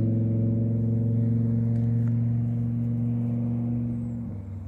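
A steady low motor hum at one unchanging pitch, which drops away abruptly near the end.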